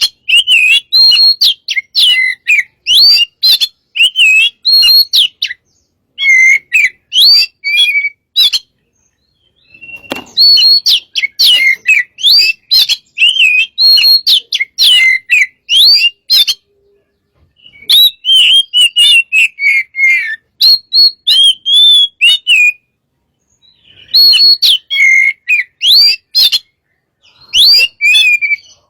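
Oriental magpie-robin (kacer) singing vigorously: rapid strings of loud whistled and chirping notes, sliding up and down, delivered in bursts of phrases with short pauses between them.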